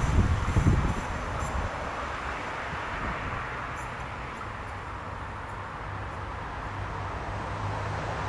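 Electric passenger train on the rails, its rumble dying away over the first second as it recedes, leaving a faint, steady distant rumble.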